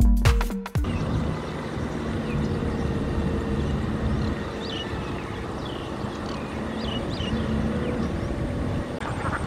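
Electronic intro music cuts off under a second in. A farm tractor's diesel engine then runs steadily under load as it works through deep mud.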